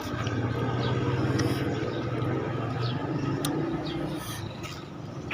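A road vehicle's engine passing close by, swelling to a peak in the first second or two and then slowly fading, with a few faint clicks over it.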